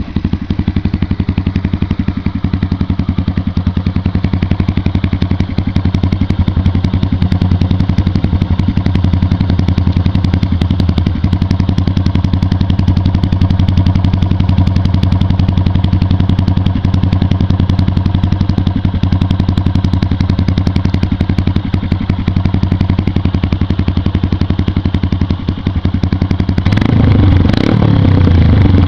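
Yamaha XTZ motorcycle engine idling steadily through a Roncar RS exhaust cut down to half length and packed inside with glass wool, giving an even, pulsing idle. Near the end it revs up and gets louder.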